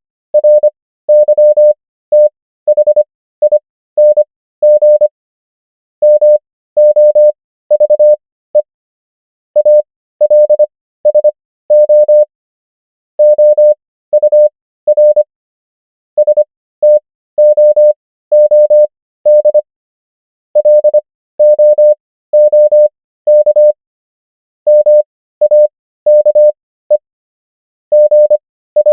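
Morse code sent as a single steady mid-pitched beep, keyed on and off in short dits and longer dahs. The characters go at 25 words per minute, with wider Farnsworth gaps between characters and words that bring the overall pace to 15 words per minute, spelling common English words one after another.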